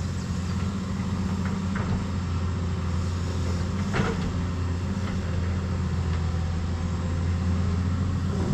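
Backhoe's diesel engine running steadily, with a single short knock about four seconds in.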